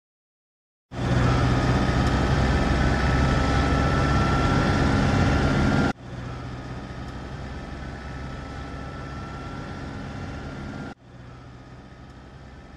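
Motor-vehicle engine sound effect, traffic approaching the crossing: it starts abruptly about a second in and runs steadily with a low hum and a faint, slightly rising whine, then drops sharply in loudness twice, about six seconds in and again near the end.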